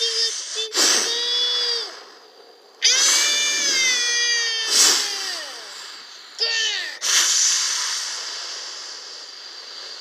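A child's high-pitched voice making drawn-out wordless wails and squeals, some sliding down in pitch, the loudest about three seconds in. From about seven seconds in a steady hissing rush takes over and slowly fades.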